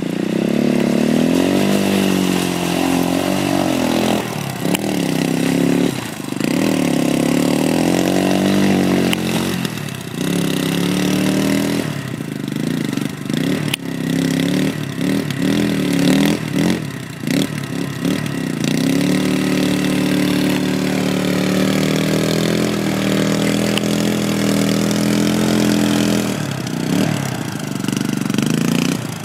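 Sport quad engines revving up and down as they ride and slide through the dirt, the engine note rising and falling again and again. Around the middle the throttle is blipped on and off in quick stabs, then the engine holds a steady, higher note for several seconds.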